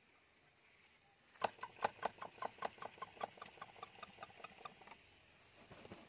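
Indian ringneck parakeet giving a rapid chattering call. About a second and a half in, a run of short, evenly spaced notes begins at about six a second, loudest at the start and fading away before it stops about five seconds in.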